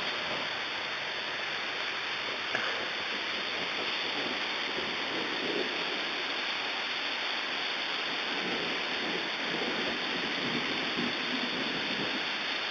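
Heavy rain falling steadily, with a low rumble of thunder in the second half and a single small click about two and a half seconds in.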